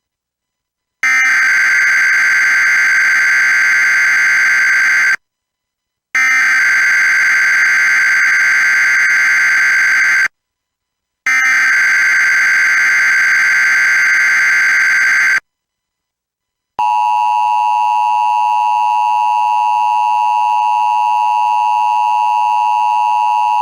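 Emergency Alert System tones for a Child Abduction Emergency (Amber Alert). First come three bursts of SAME digital header data, each about four seconds long with a short gap between them. Then, about 17 seconds in, the steady two-tone EAS attention signal begins.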